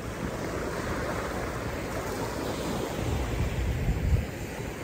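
Small surf waves washing up a sandy beach, with wind buffeting the microphone in a low rumble from about three to four seconds in.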